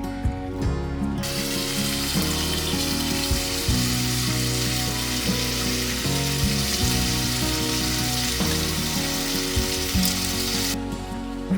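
Background music with a steady hissing noise laid over it, starting suddenly about a second in and cutting off near the end.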